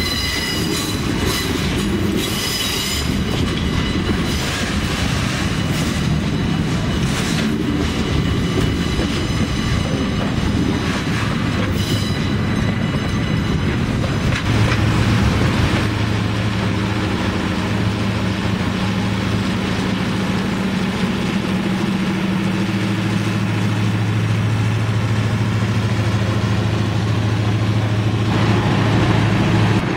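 Freight cars rolling past on jointed track, with wheels clacking over the rail joints and a brief high wheel squeal at the start. From about halfway on, a steady low diesel drone joins the rolling noise, from the ELS EMD SW8 switcher's engine.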